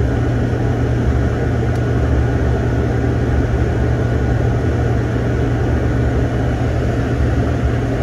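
Steady cabin noise of an airliner in flight above the clouds: a loud, deep engine and airflow drone with an even hiss above it, heard from inside the cabin.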